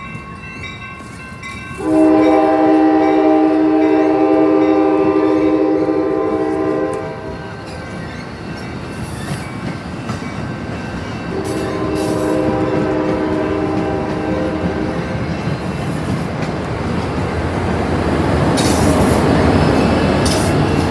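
Amtrak California bilevel passenger train passing close by, sounding its horn: a long steady chord of about five seconds, then after a short gap a second blast of about three and a half seconds, over the rumble and clatter of the cars rolling past. The rolling noise grows louder near the end as the locomotive goes by.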